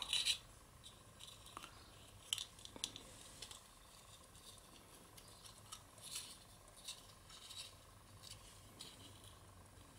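Faint rustling and light clicks of cardstock being handled and pressed together as a paper box basket is glued onto a die-cut paper hot air balloon. The crackles come in scattered short bunches.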